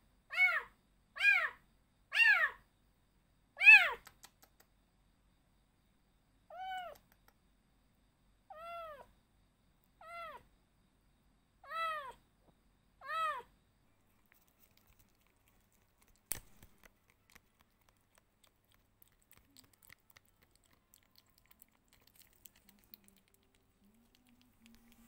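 Young tabby kitten meowing over and over: about nine meows, each rising then falling in pitch, the first four louder and close together, the rest softer and more spaced out. About sixteen seconds in comes a single sharp click, followed by faint scuffles.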